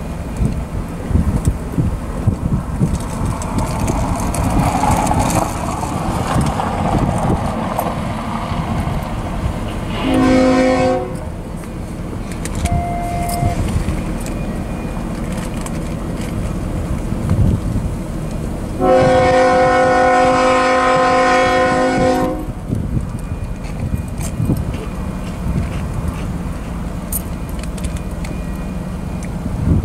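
Kansas City Southern #4802's multi-chime air horn sounding a short blast about ten seconds in and a long blast a little past halfway, warning of the approaching grade crossing. The low, steady rumble of the approaching freight train runs underneath.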